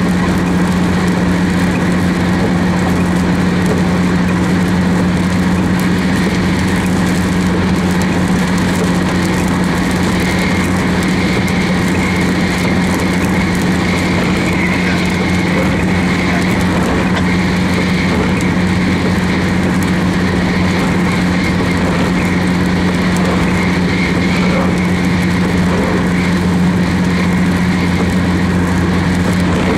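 Car cabin noise while driving on a wet highway: a steady low engine and road drone with the hiss of tyres on wet pavement.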